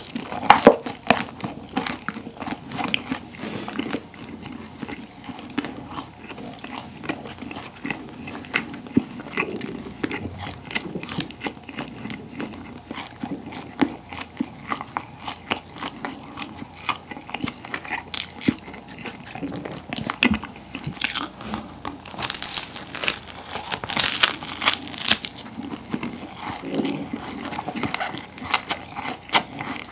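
Close-miked biting and chewing of a crusty pollock roe baguette: a steady stream of crisp crunches from the crust, with louder crunching about 21 to 25 seconds in.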